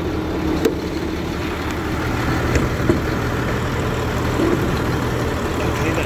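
Caterpillar 3126 inline-six diesel engines idling steadily in school buses, with a couple of short sharp clicks.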